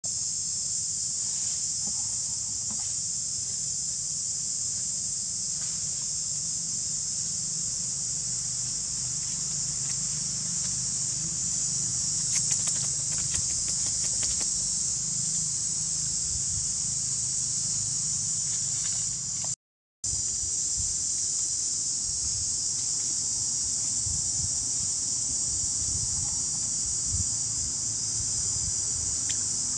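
A steady, high-pitched chorus of insects, with a low rumble underneath. It cuts out completely for a moment about two-thirds of the way through.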